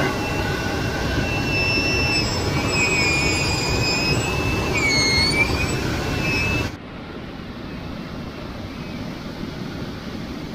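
A 1/10-scale RC rock crawler's electric motor and gears whine as it climbs, the pitch rising and falling with the throttle over a dense grinding noise. About two-thirds of the way through it cuts off suddenly, leaving a quieter steady hiss.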